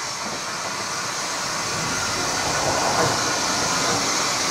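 Beyer Peacock 0-6-0T narrow-gauge steam locomotive drawing near out of sight, a steady hissing train noise that grows louder throughout.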